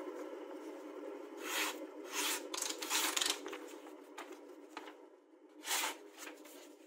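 Freshly sharpened knife slicing through a sheet of paper: several quick, rasping swishes a second or so apart, with a gap before the last one near the end. A steady hum runs underneath and slowly fades.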